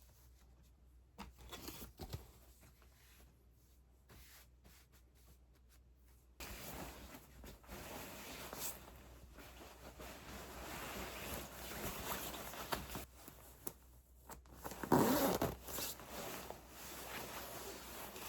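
A few faint clicks, then continuous rustling and zipper-like scraping from handling fabric or packaging, with a louder burst of rustling about fifteen seconds in.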